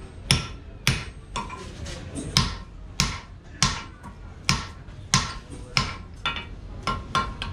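Hammer blows on red-hot steel held on a Fisher anvil, about two a second. Each is a sharp metallic strike with a short ring, as the eye of a hammer head is being opened with a drift.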